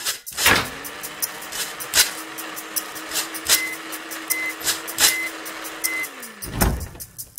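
Electric blender motor starting up, running with a steady hum for about six seconds, then spinning down near the end. A music beat with regular clicks and four short high beeps goes on underneath.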